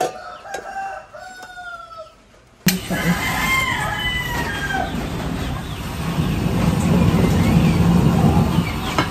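Chickens and a rooster calling in the background. About three seconds in, a steady rushing hiss starts and carries on as a portable LPG single-burner stove is opened and lit with a match.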